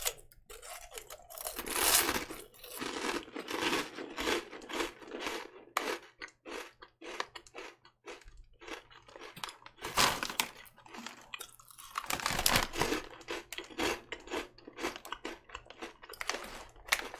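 A person chewing a large mouthful of Nongshim shrimp-flavoured crackers close to the microphone, with many irregular crunches.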